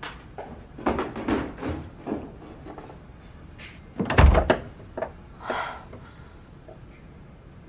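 Footsteps, then a wooden room door pushed shut with a solid thud about four seconds in, the loudest sound, followed by a short softer rustle.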